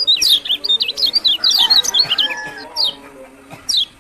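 Kecial kuning, a yellow white-eye, singing: a fast, dense run of high, sharp chirping notes for about two and a half seconds, thinning to a few single notes near the end.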